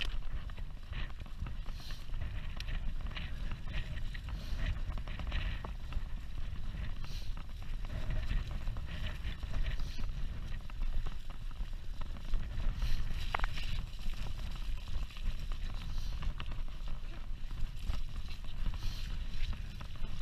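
Mountain bike riding over a rough, wet dirt track, heard from a handlebar-mounted camera: a steady low rumble of wind and tyre noise with frequent small rattles and clicks from the bike, and a brief squeak about halfway through.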